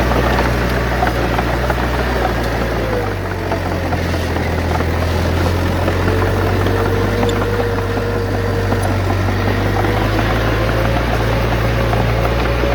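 Bulldozer's heavy diesel engine running steadily under load, its low note shifting about three seconds in and shifting back near ten seconds.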